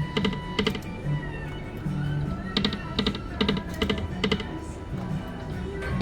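Poker machine game audio: electronic music with groups of short, sharp clicking ticks and chime-like tones as the reels spin and stop.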